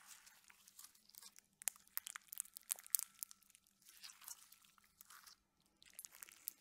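Pink slime studded with small white beads being stretched and squeezed by hand: quiet, irregular sticky crackles and crunchy clicks, with a short lull a little past five seconds.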